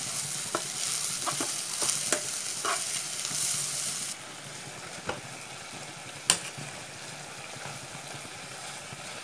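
Sliced onions and boiled tapioca sizzling in ghee in a pan while a steel spatula stirs them, with a few scrapes and knocks against the pan. About four seconds in, the sizzle drops abruptly to a quieter level, and a single sharp knock follows a couple of seconds later.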